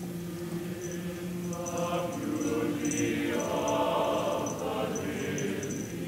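Background choral music: a choir singing long held notes that swell in the middle.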